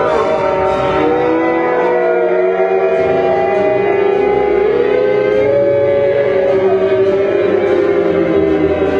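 Background music of long held tones that slide slowly up and down, several lines at once.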